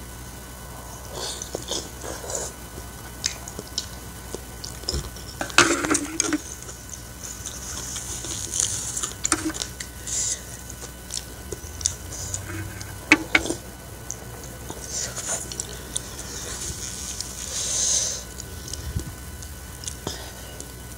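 Close-up mukbang eating sounds: a person chewing and eating spicy instant noodles in soup, with a run of wet mouth noises. Chopsticks and a spoon clink sharply against the bowl, loudest about six and thirteen seconds in.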